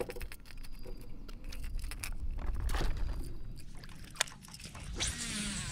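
Small clicks and rustles of fishing line and a lure being handled while the lure is tied on, then a baitcasting rod and reel being handled. A steady low rumble runs underneath, and there is a brief hiss about five seconds in.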